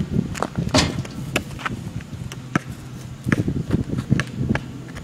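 Basketball bouncing on asphalt and sneakers stepping and scuffing during one-on-one play: a scatter of sharp thuds, with a quicker run of them about three seconds in.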